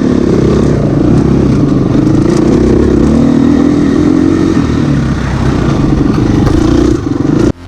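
Yamaha RZ250 liquid-cooled two-stroke parallel-twin engine running, its pitch wavering a little, cutting off abruptly near the end.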